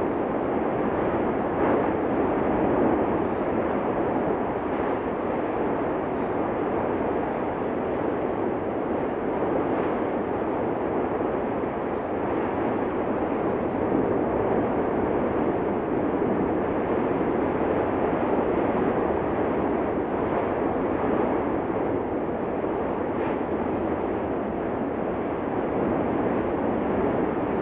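The Cumbre Vieja fissure eruption's continuous noise: a steady, even rush with no breaks.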